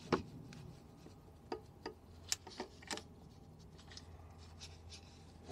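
A few light, scattered metallic clicks and taps as the piston of a Minarelli V1 50cc engine is worked by hand on its connecting rod, turning the crankshaft to check the bottom end.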